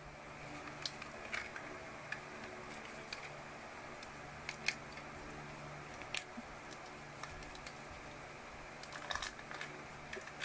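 Scattered light clicks and crinkles of a foil-and-plastic toy-surprise packet being handled and picked open by hand, over a faint steady hum. A small cluster of clicks comes about nine seconds in.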